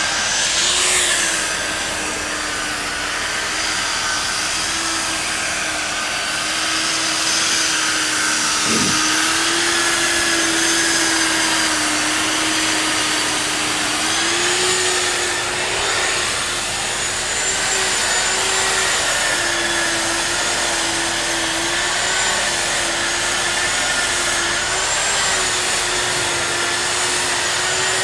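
Electric grinding machine running continuously, a steady rushing hiss with a motor hum and whine whose pitch wavers slightly.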